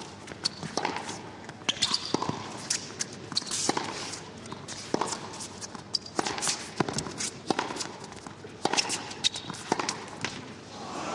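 Tennis rally: a ball struck by rackets and bouncing on the court, a sharp crack every half second to a second, mixed with players' footsteps. An even crowd-like haze swells in the last half second.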